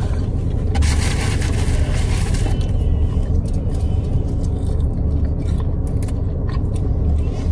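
Steady low rumble of a car's cabin, with a brief scraping rustle about a second in and a few light clicks.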